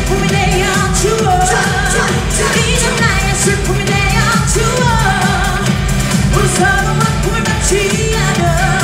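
Women singing a Korean pop song live over music with a steady, evenly repeating beat.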